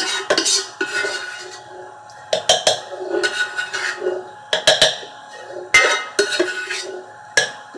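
A cooking utensil scraping and knocking against a steel pan while a layer of masala is spread over rice. It comes in short bouts every second or so, with a few sharp knocks among them.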